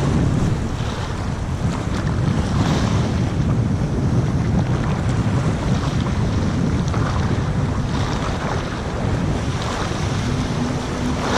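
Wind buffeting the microphone over choppy sea waves washing and splashing close by, with a few louder surges of wash every few seconds.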